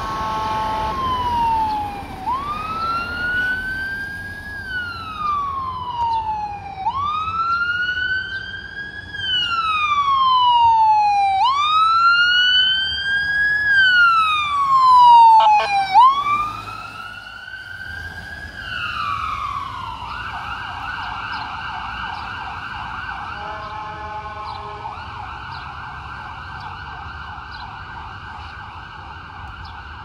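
Ambulance siren on wail, slowly rising and falling about every four and a half seconds, with short horn honks near the start and again at its loudest point as it passes, about halfway through. It then switches to a fast yelp that fades as the ambulance drives away, with one more horn blast partway through the yelp.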